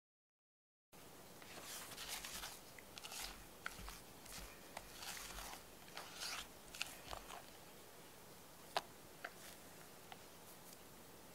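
Silicone spatula stirring and scraping thick castella batter in a glass bowl. Soft wet swishes come about once or twice a second, starting about a second in, then a few sharp clicks, the loudest near the end.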